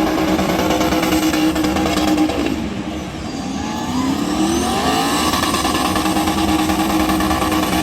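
Car engine held at high revs, easing off about three seconds in, then revving back up and holding.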